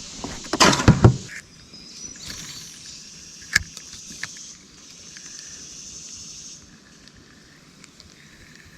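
A steady high insect drone, which stops about two-thirds of the way through, with a cluster of loud knocks and rattles about a second in and a single sharp click a few seconds later.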